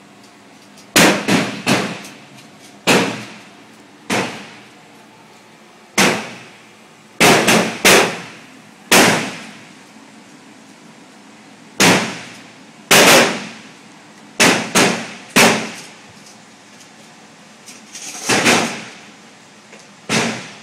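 M16 rifles firing single 5.56 mm shots along a firing line, about twenty cracks at irregular intervals, some coming two or three in quick succession as several shooters fire at once. Each shot is followed by a short echo.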